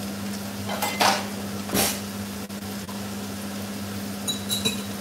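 A kitchen knife cutting the rind off a block of parmesan on a cutting board: two short scraping strokes about one and two seconds in, then a few light metallic clinks near the end, over a steady low hum.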